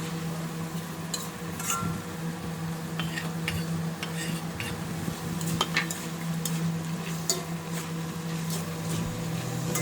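A spatula stirring capcay (stir-fried mixed vegetables) in a pan. There is a light sizzle and scattered clicks and scrapes of the utensil against the metal, over a steady low hum.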